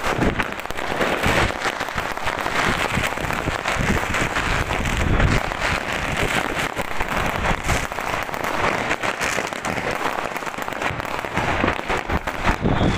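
Fireworks and firecrackers crackling and popping all at once in a dense, unbroken barrage, with a few louder bangs among them.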